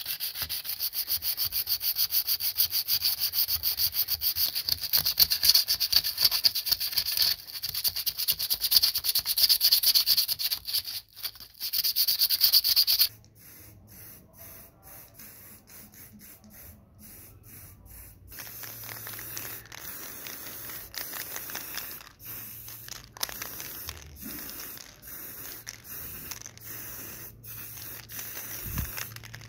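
Sandpaper rubbed by hand on a small steel mouse-trap plate, in fast, even back-and-forth strokes. About 13 seconds in it stops, and a quieter hiss follows in short bursts with many breaks: an aerosol spray can painting the trap.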